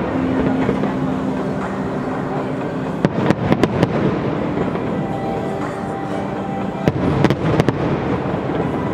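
Fireworks going off: a continuous rumble of distant bursts, with two clusters of sharp bangs and crackles, about three seconds in and again about seven seconds in. Steady musical tones run underneath.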